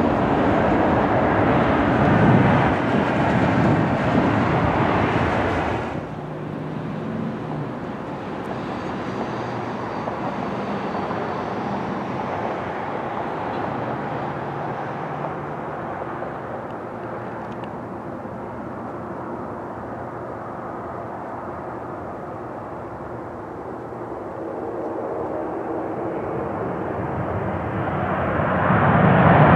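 Jet engine roar of Boeing 737 airliners with CFM56 turbofans: a loud steady roar from a 737 slowing on the runway after landing, cut off suddenly about six seconds in, then the quieter sound of another 737 on final approach that swells into a loud roar near the end as it touches down.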